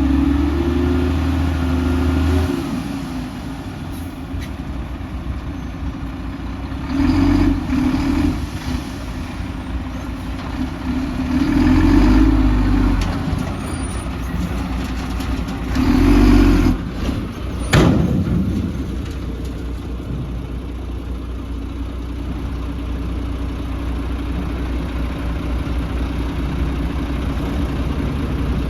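Heavy diesel earthmoving machinery running steadily, revving up three times a few seconds apart. Shortly after the last rev there is a single sharp metallic clank.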